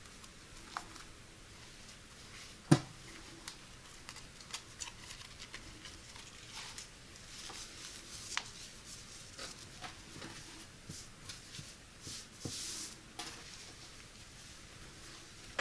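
Hands handling a knit golf polo shirt as it is unbuttoned and shaken open: soft fabric rustles and small scattered clicks. One sharp click comes about three seconds in, and a longer rustle follows near the end.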